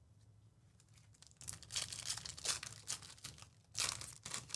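A foil trading-card pack wrapper being torn open and crinkled by hand. After about a second and a half of quiet it starts, in a string of sharp, irregular crackles and rips.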